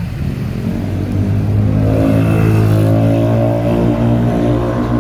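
Loud steady mechanical drone from a vehicle or train motor: a strong low hum with a stack of overtones that swells fuller about two seconds in and then holds.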